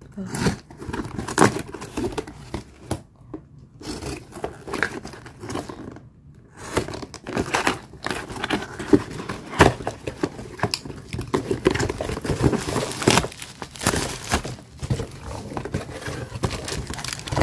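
Black plastic wrapping and packing tape being torn and crumpled by hand off a cardboard parcel: irregular crinkling, crackling and tearing, pausing briefly about three and six seconds in, with bubble wrap rustling near the end.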